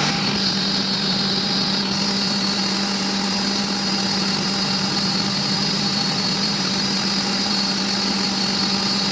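Workshop machinery running steadily: a constant low hum with a high whine above it.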